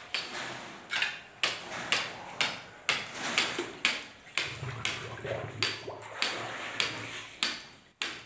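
Steady hammering, about two blows a second, each sharp strike fading quickly.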